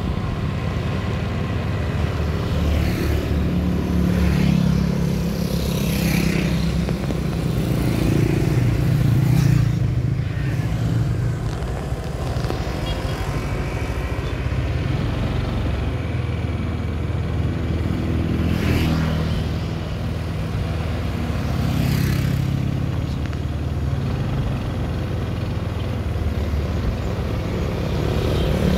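Small motorcycle engines running steadily, with several motorcycles and scooters passing by one after another, each swelling and fading.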